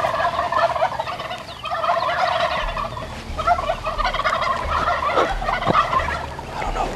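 Wild turkey gobbling again and again: about four rattling gobbles in a row, each a second or so long.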